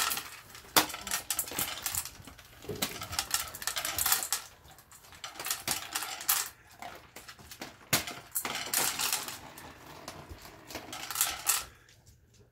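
Dry kibble clinking and rattling in a stainless steel pet bowl as an automatic pet feeder dispenses it and a dog eats from the bowl. It comes in repeated bursts of clicks, about half a dozen, dying away near the end.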